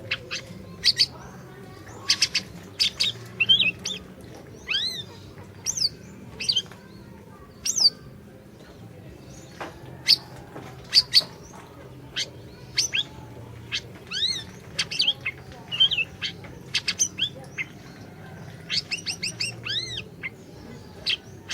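Black-naped monarch (siri-siri) calling vigorously: a lively, irregular series of sharp high chirps and short arching whistled notes, with a quick run of repeated chirps near the end.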